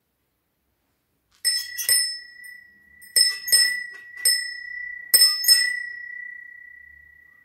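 A small bell rung in three short bursts of strokes, each ringing at one clear high pitch; the tone dies away slowly after the last strokes. This is the bell that marks the start of the Mass.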